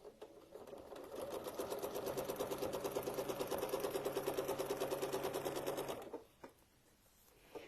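Sewing machine stitching at a lowered speed setting, the needle strokes coming in a fast, even rhythm. It builds up over the first second or two and stops about six seconds in.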